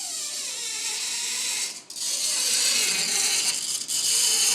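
Water draining out through a plug hole with a loud, rattling gurgle. It breaks off for a moment about two seconds in, then carries on.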